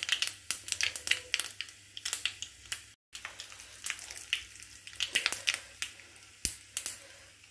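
Hot oil crackling and spluttering in a small pan as a tempering of garlic, dried red chillies, cumin and onion fries, with irregular sharp pops. A brief gap about three seconds in.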